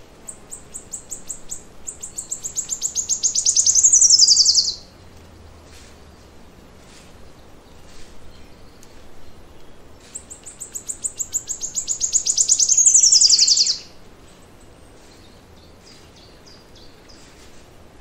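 A forest songbird singing two long songs about ten seconds apart. Each is a run of rapid high notes that speeds up and grows louder, then ends in a quick falling flourish that stops abruptly. Fainter chirps from other birds come in between.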